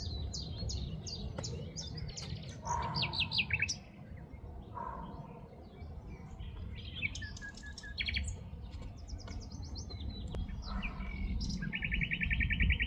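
Several wild birds chirping and singing in short, repeated trills, with a fast even trill near the end, over a low rumble of wind on the microphone.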